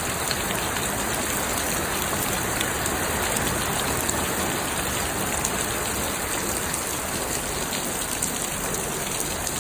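Steady hiss and patter of falling water, like rain.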